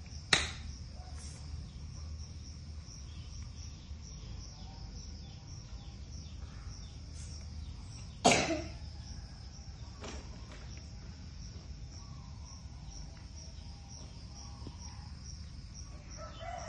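Insects chirping steadily in a fast, even pulse over a low background rumble. Two sudden sharp sounds, like coughs, are the loudest things heard, one near the start and one about halfway.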